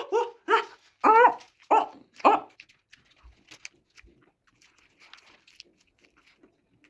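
A dog making a series of about five short, whining yelps over the first two and a half seconds, then only faint scattered ticks.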